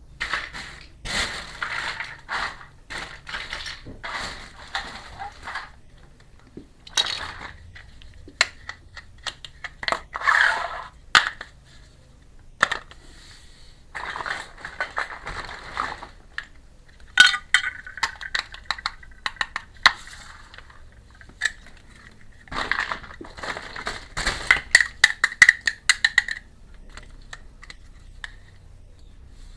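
Small miniature toy kitchen pieces and their packaging being handled: irregular clicks, light clinks and crinkly rustles in clusters, with short pauses between.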